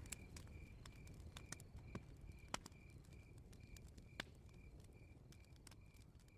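Faint night ambience: a cricket chirping steadily, about two and a half chirps a second, with scattered sharp crackles of a campfire over a low rumble, slowly fading.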